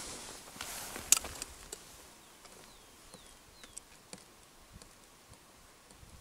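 Quiet outdoor ambience with small clicks and taps of ice-fishing rods and gear being handled, the sharpest click about a second in. A few short falling chirps from a bird are heard through it.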